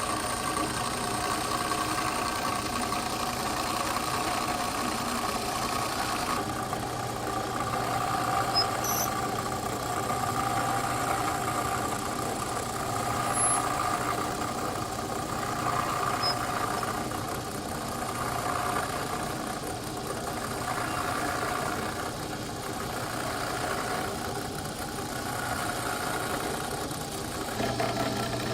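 Oliver 299 thickness planer's built-in knife-sharpening attachment running, a steady motor hum as the stone works the planer blades. The tone shifts about six seconds in and again near the end.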